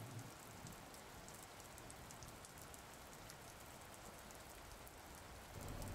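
Faint, steady light rain, a soft even hiss with fine scattered drop ticks.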